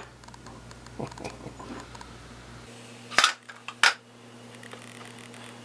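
Steel lathe gears being handled: a soft knock, then two sharp metallic clinks just over half a second apart as the gears strike metal.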